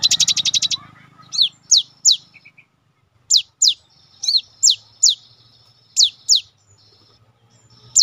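Cinereous tit (gelatik batu) singing: a rapid run of about a dozen short, high notes in the first second, then sharp notes sweeping steeply downward, in twos and threes with short pauses between.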